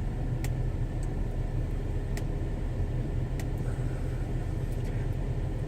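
Steady low motor hum, like an idling engine or running air conditioner, with a few faint clicks.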